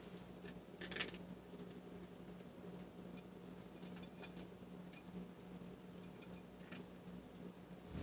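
GE GTW465 top-load washer spinning, a steady low hum with a few scattered light clicks and taps, the sharpest about a second in. These are the clicking and tapping noises the owner finds an annoyance with this washer.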